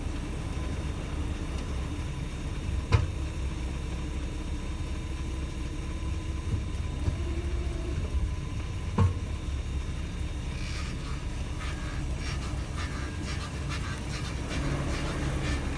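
Mercedes-Benz W124 500E with a steady low engine and road rumble. Two sharp knocks come about three seconds and nine seconds in, and from about ten seconds a string of rapid clicks and rattles follows. These are the abnormal noises from the rear suspension whose cause the owner is trying to find.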